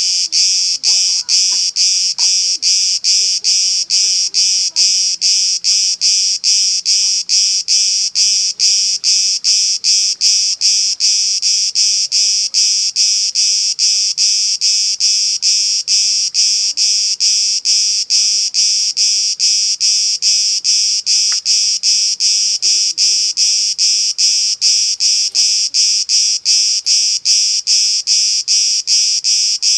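A cicada on an olive tree singing loudly: a high, shrill, continuous buzz pulsing at a fast, even rate.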